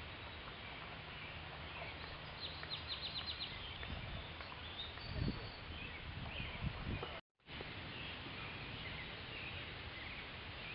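Open-air ambience with a steady low rumble and songbird calls, among them a quick run of about eight clipped repeated notes a couple of seconds in. A few low thumps come just past the middle, then the sound drops out for a moment.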